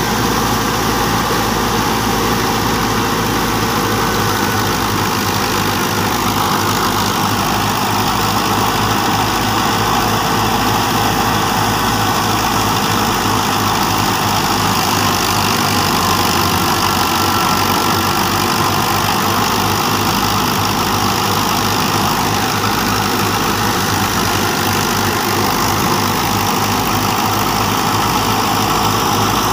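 Fiat 640 tractor's diesel engine running steadily while powering a wheat thresher, the engine and thresher blending into one continuous machine noise.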